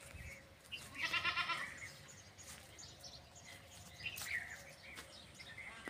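A goat bleats once about a second in, a short quavering call. Otherwise there is only quiet background with a few faint ticks.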